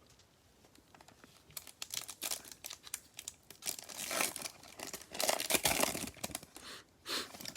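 Bowman trading card pack wrapper being torn open and crinkled by hand, in irregular rustling bursts with small clicks, loudest in the middle of the stretch.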